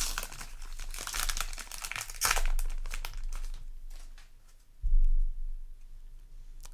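Foil wrapper of a Yu-Gi-Oh! booster pack crinkling and being torn open by hand, with a single dull thump about five seconds in.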